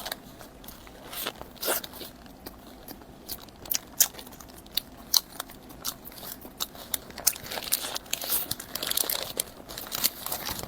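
Close-miked biting into and chewing a hamburger: irregular crisp crunching and crackling mouth sounds.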